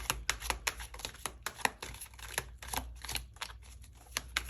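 Tarot cards being handled and shuffled: a quick, irregular run of sharp clicks and snaps, several a second.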